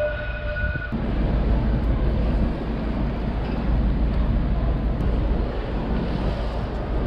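Wind buffeting the microphone outdoors: a dense, unsteady low rumble that starts about a second in, after a brief steady whine dies away.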